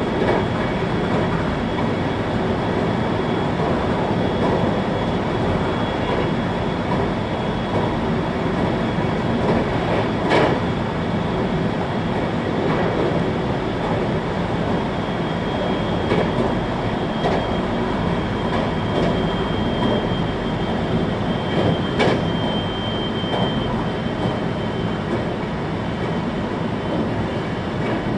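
Interior running noise of a 521-series electric multiple unit at speed: a steady rumble of wheels on rail, with two sharper clacks, one about a third of the way in and one later. A faint high whine rises over the rumble for several seconds past the middle.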